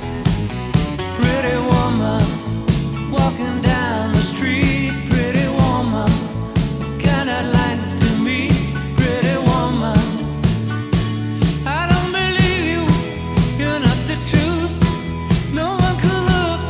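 Upbeat rock-and-roll music with a steady beat of about two hits a second and a wavering, bending lead line over it, with no clear lyrics.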